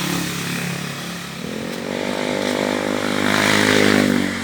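Motorcycle engines droning as they pass, one growing louder from about a second and a half in and fading near the end over a steady lower engine hum.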